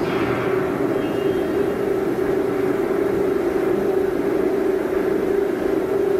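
Mechanical membrane-panel bending machine running in the shop, its drive giving a steady, loud drone with a higher whine that falls away in the first second.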